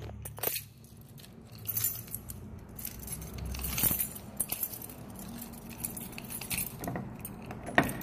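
A bunch of keys on a ring jangling and clinking as it is handled, in short metallic jingles that come on and off.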